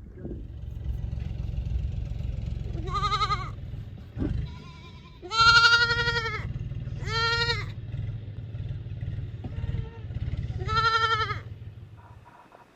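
Livestock bleating four times, each call wavering in pitch, the second one the longest and loudest. A steady low rumble runs underneath and stops near the end.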